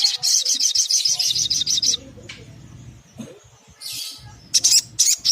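Olive-backed sunbird calling: a fast run of high, sharp chipping notes for about two seconds, then a short buzzy note, and another quick burst of chips near the end.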